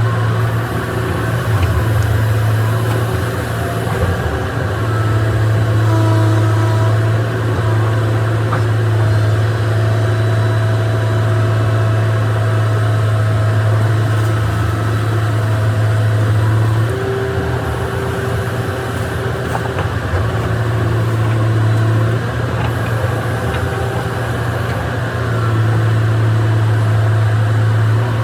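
Excavator's diesel engine running steadily with a strong low hum, which weakens for a few seconds about two-thirds of the way through and again briefly near the end. Fainter higher tones come and go over it.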